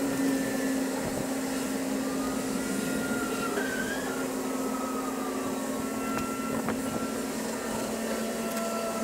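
An engine running steadily, its low hum sinking slowly in pitch.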